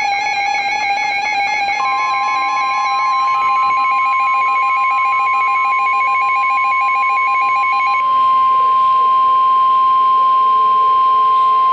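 NOAA Weather Radio 1050 Hz warning alarm tone: one steady high tone that starts about two seconds in and holds for about ten seconds, signalling that a warning message follows. Over its first part, a rapidly pulsing electronic alarm beep sounds and stops about eight seconds in.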